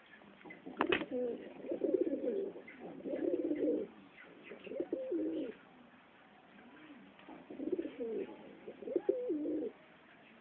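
Pigeons cooing in three bouts of low, wavering coos, with one sharp click about a second in.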